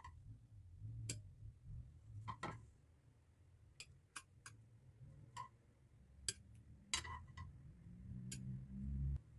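Stainless steel tongs clicking and tapping against a ceramic plate as fried patties are set down: about a dozen light, irregular clicks, some with a short ring. A low hum runs underneath and swells into a low rumble just before the end.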